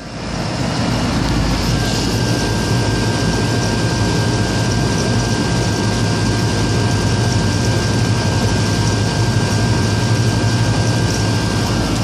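A 1.5-ton Nordyne central air conditioner condensing unit running: its Copeland reciprocating compressor gives a steady hum under the rush of the condenser fan, with a thin high tone heard over most of it.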